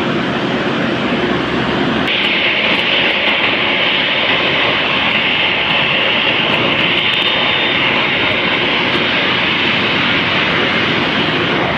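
Jet airliner engines running, loud and steady with no break; about two seconds in the sound shifts abruptly to a brighter, hissier tone.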